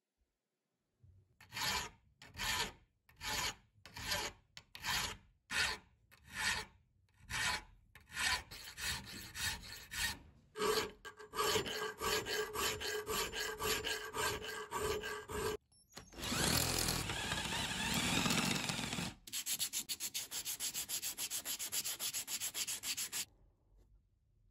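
Hand file rasping across the cast iron frame of a pipe vise. It starts as slow separate strokes, speeds up to quicker strokes with a faint ringing tone from the metal, runs as a continuous rasp for a few seconds, then goes on in very quick short strokes and stops about a second before the end.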